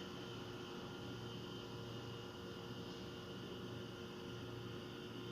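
Steady low hum with a faint hiss and no distinct events.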